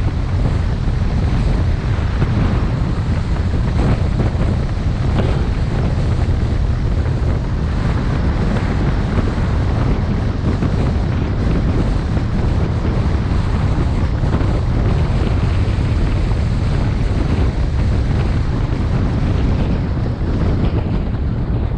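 Wind buffeting the microphone: a steady, loud low rumble with a fainter hiss above it.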